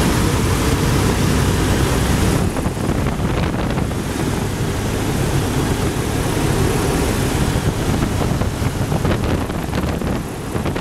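Piper PA-18 Super Cub's engine and propeller running steadily, heard from inside the cockpit, mixed with wind noise. The engine noise drops a little about two and a half seconds in.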